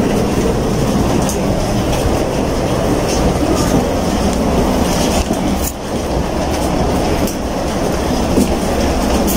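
Loud, steady rumble of footsteps and movement inside an airport jet bridge, with scattered knocks and clatter as passengers walk along the walkway.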